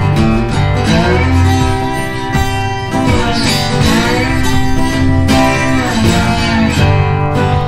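Background music: a country-style instrumental led by acoustic guitar, with some notes sliding in pitch.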